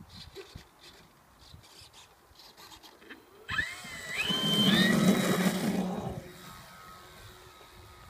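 Electric motor and propeller of a balsa RC Super Decathlon model plane spinning up about three and a half seconds in. A whine rises in pitch, then loud propeller noise lasts about two seconds and fades away.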